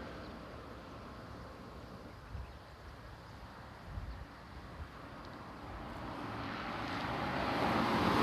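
A vehicle approaching, its noise swelling steadily over the last two seconds or so, over low wind buffeting on the microphone.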